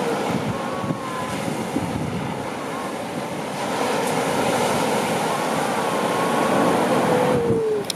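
Surf and wind noise on a seal beach, with grey seal calls over it: a short wavering wail about a second in, then a long wavering wail from about halfway that drops in pitch as it ends.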